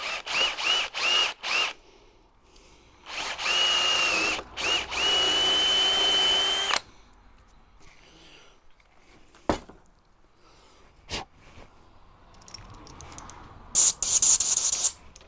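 Power drill boring a hole through the model tank's hull plate for a rear light. It is run in several short trigger blips, then in two longer runs with a steady whine that stop about seven seconds in. A couple of clicks and a brief high rattle follow near the end.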